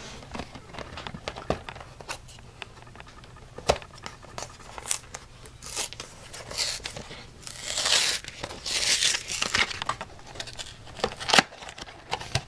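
Hands handling and opening a small cardboard blind box: scattered taps and clicks of fingers on the card, with a longer stretch of tearing and crinkling in the middle.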